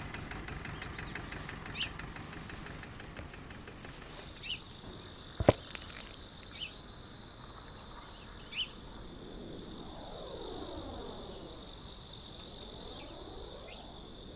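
Meadow insects chirring, a steady high-pitched tone that drops in pitch about four seconds in, with a few short chirps over it. A sharp click stands out about five and a half seconds in, and from about ten seconds in a slow sweeping sound passes, as of something moving close by.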